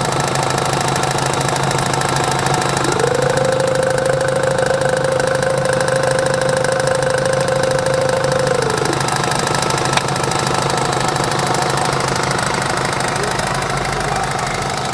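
Chevrolet Tahoe V8 idling with a rapid knock from its new power-steering pump, a knock that comes up under load and has not been cured by a new pump valve, a new steering box or bypassing the hydroboost. A steady whine rises in about three seconds in, holds, and drops away some six seconds later, with a single click soon after.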